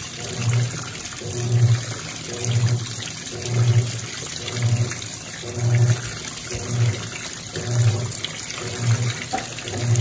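Electrolux LT12F top-load washing machine in its rinse cycle: a jet of recirculated water pours steadily onto the clothes while the agitator motor hums in a regular rhythm, swelling about once a second as the agitator churns back and forth.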